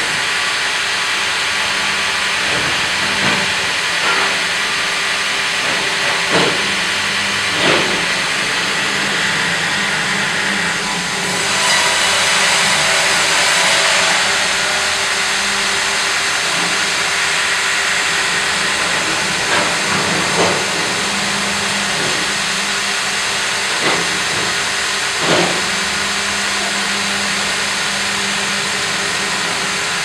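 Fimaksan automatic log carriage and hydraulic vertical band saw running: a steady hissing machine noise with a low hum, broken by several sharp knocks. The noise swells for a few seconds near the middle.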